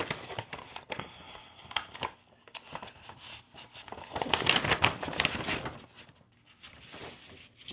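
Paper crinkling and rustling as cards and mail are handled, with scattered small clicks and a louder stretch of crinkling about halfway through.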